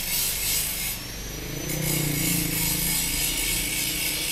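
A pickup truck's engine running as it pulls away, a low wavering hum that swells about a second in and fades after three seconds. A steady high rasping hiss runs throughout.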